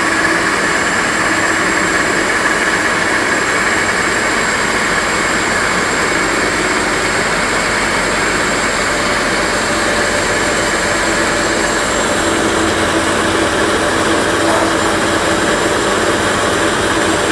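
A turbocharger-based two-stage micro gas turbine running steadily at constant speed. It makes a loud, even rush of combustion and airflow with a steady high whine over it.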